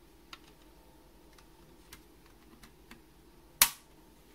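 A few light clicks and taps of paint tubes and palette pans being handled on a table, then one much louder, sharp click about three and a half seconds in.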